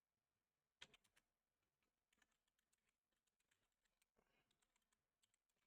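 Faint, irregular keystrokes on a computer keyboard, typed at speed, with a louder cluster of key clicks about a second in.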